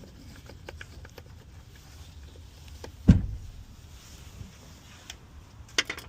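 Hand tools and engine-bay parts being handled: scattered light clicks and taps, with one dull thump about three seconds in and a few sharper clicks near the end, over a steady low rumble.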